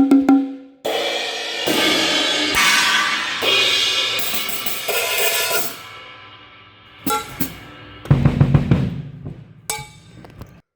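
Acoustic drum kit played solo as a tone check: cymbal crashes ring out and die away over several seconds, then lower drum strokes and a quick run of hits near the end.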